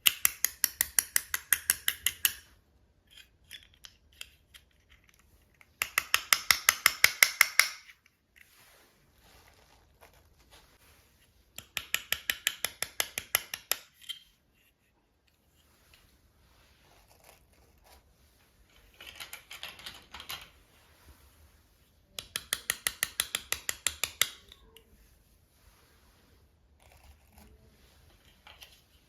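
Bursts of rapid, evenly spaced sharp clicks, about six a second, five runs of about two seconds each with pauses between; the fourth run is fainter.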